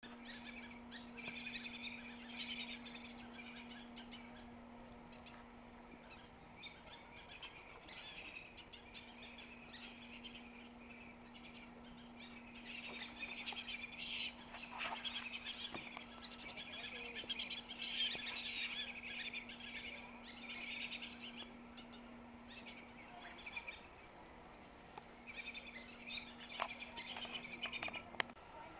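Many birds chirping and twittering, busiest in the middle, over a faint steady hum.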